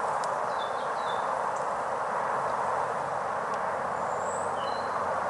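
A few short, high bird chirps, a couple near the start and a couple more near the end, over a steady hiss.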